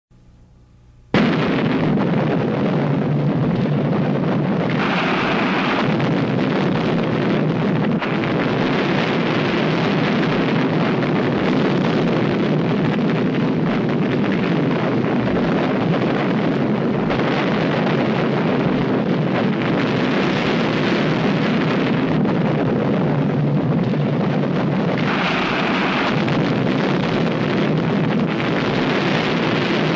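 A loud, steady rushing roar that cuts in suddenly about a second in and swells now and then, its hiss growing brighter for a second or two at a time.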